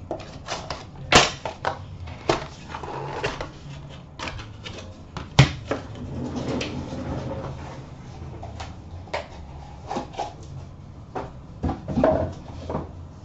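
Handling noise from opening a small cardboard box of cased trading cards: scattered clicks, taps and knocks, the loudest about a second in and just past five seconds.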